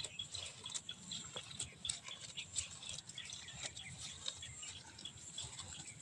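A cow biting, tearing and chewing grass close to the microphone: irregular crisp crunches and rustles.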